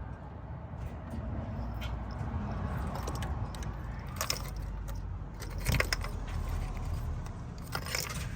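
Scattered clicks, rattles and light scrapes of hands working wiring and plug connectors at the ignition coils, over a low steady rumble.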